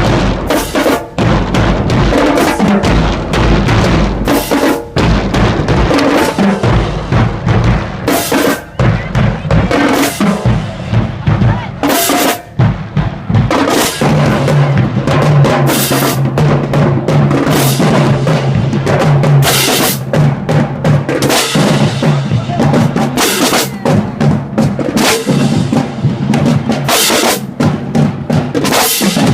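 High school marching band playing loudly, its drumline of snare and bass drums beating dense, driving rhythms, with low held notes sustained for several seconds midway.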